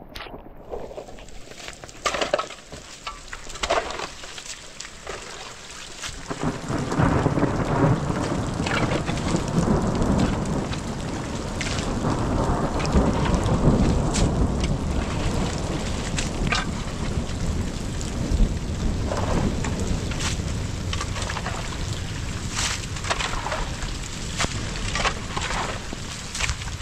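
Rain falling with scattered close drops ticking. About six seconds in, a long low rumble of thunder swells up and keeps rolling under the rain.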